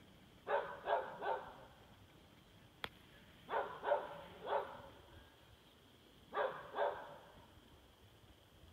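A dog barking hard, in three bursts of two or three sharp barks each with a pause of a couple of seconds between bursts.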